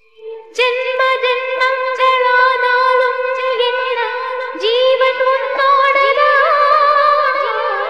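Opening of a Tamil film song: a female voice holds a long, steady hummed note that starts about half a second in and lifts a little in pitch about halfway through, over soft ticks keeping time.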